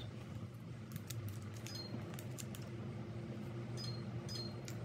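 A few faint clicks of a small hard object being handled in the hands, about two seconds in and again near the end, over a steady low hum.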